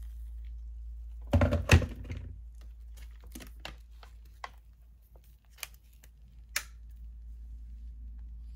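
Instant-noodle cup and its paper lid and packaging being handled after the hot water goes in: a heavier knock and rattle about a second and a half in, then a string of light, sharp crinkles and clicks.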